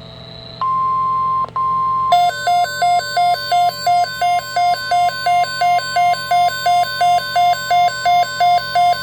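Weather radio alert: a steady, high, single-pitched warning tone sounds from about half a second in, then about two seconds in a loud electronic alarm starts beeping about three times a second over it.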